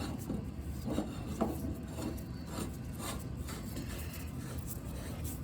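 Threaded steel pipe fitting being turned on by hand onto taped and doped pipe threads: irregular rubbing and scraping of the threads, with scattered light clicks.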